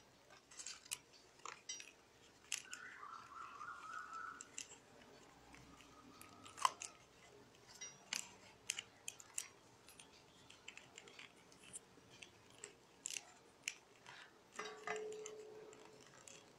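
Rolled paper tubes crinkling and clicking faintly as they are woven by hand in and out of upright paper-tube spokes, in irregular small crackles with one sharper click about a third of the way in.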